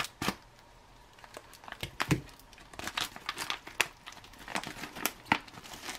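Aluminium foil ration pouch being torn open and crinkled by hand: a run of sharp, irregular crackles and rips.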